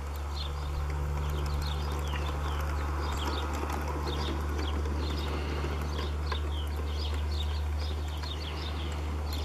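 LGB G-scale model tram locomotive running along garden track, with a steady low hum and a light running rattle that is loudest about midway as it passes close. Birds chirp repeatedly in short falling notes throughout.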